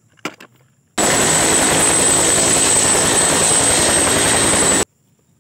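A turbine helicopter running on the ground, its rotor noise under a steady high turbine whine. It starts abruptly about a second in and cuts off abruptly near the end. Just before it, a couple of light plastic clicks are heard as the toy is set down.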